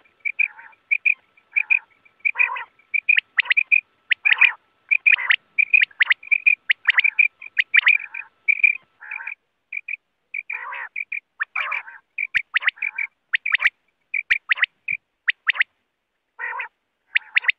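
Quail calling: a fast, unbroken run of short, clipped call notes, several a second, with a few louder sharp notes among them and brief gaps.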